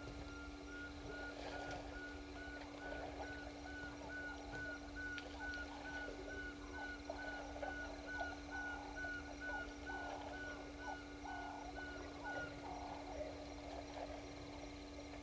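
An animal calling a steady series of short whistled notes at one pitch, about three a second, which stops near the end, over a constant low hum.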